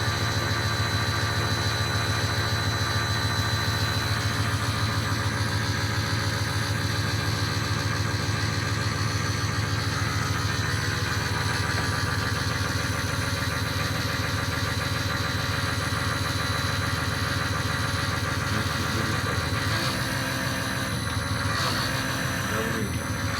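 Power-steering rack test stand running steadily: its motor-driven hydraulic pump hums and drives fluid through a rebuilt Ford Fusion steering rack under pressure, with a thin steady high tone over the hum. The sound shifts a little near the end.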